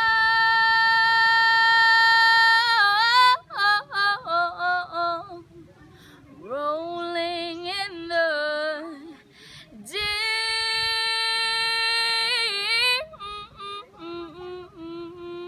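A young female singer singing a cappella, solo and unaccompanied. She holds two long, high notes, one at the start and one about ten seconds in, and each breaks into quick runs that wind up and down in pitch.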